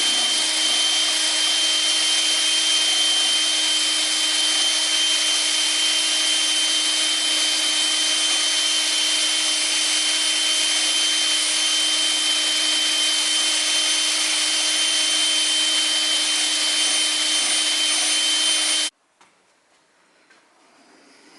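Power drill spinning a hone inside the rusty bore of a brake accumulator control valve: a steady motor whine over abrasive rubbing, which stops suddenly near the end.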